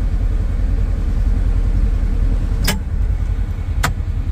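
Engine of a snowplowing machine running with a steady low rumble. Two sharp clicks a little over a second apart come in the second half.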